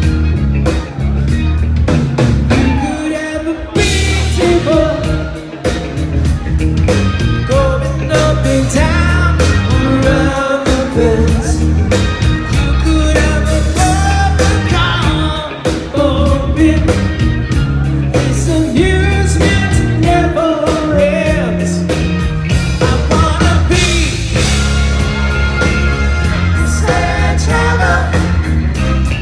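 Rock song with a sung lead vocal over band backing and a steady beat, easing off briefly twice before coming back in full.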